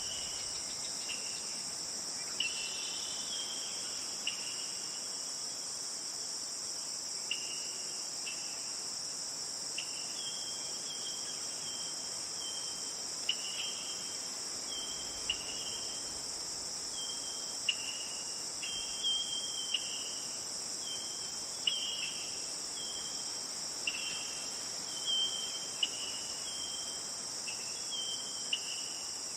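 Steady, high-pitched chorus of insects, with short chirping calls repeating about once a second over it.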